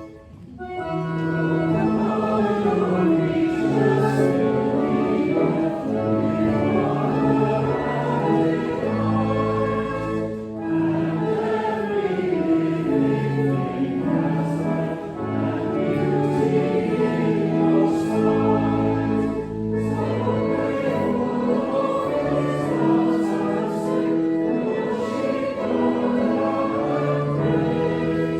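A hymn sung by many voices with organ accompaniment, starting about a second in after a brief pause.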